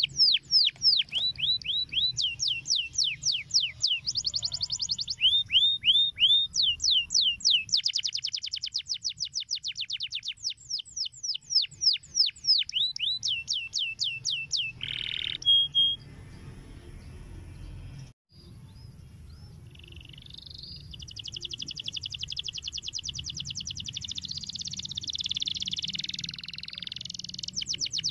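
Domestic canary singing: long tours of rapid, repeated down-sweeping notes whose speed changes every few seconds, then after a short break a softer, dense rolling warble through the second half.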